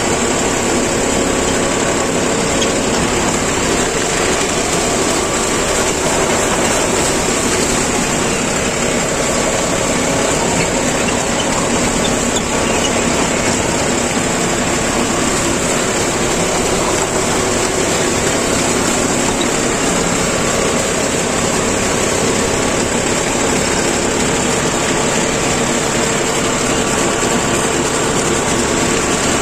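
Tractor diesel engines running steadily at working revs: one close by on the John Deere, and one just ahead driving a rotavator that churns banana stalks into the soil. The drone is unbroken, with a steady high whine above it.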